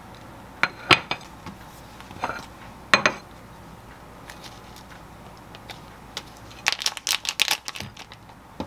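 A few sharp knocks of a plate and a wooden cutting board being set down on a counter, then a quick run of crinkling from a plastic sausage wrapper being peeled off near the end.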